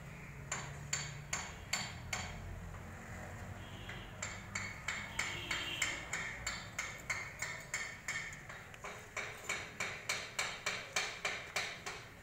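Hammer striking metal in steady, even blows, about two to three ringing strikes a second, with a short break about two seconds in.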